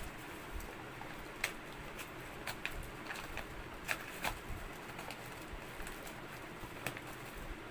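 A few faint, scattered clicks and light taps over a low steady hum.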